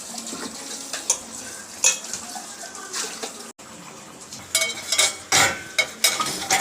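Dishes and utensils clinking and clattering as they are placed in a dishwasher rack: a few separate knocks at first, then a busier run of clatter in the second half.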